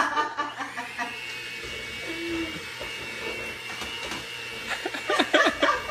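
Electric hand mixer running steadily, its beaters whirring through a thin egg, milk, oil and flour batter in a stainless steel bowl.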